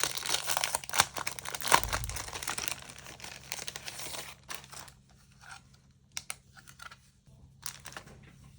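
Merchandise packaging being crinkled and torn open: dense crinkling for the first four seconds or so, then a few scattered rustles and light clicks.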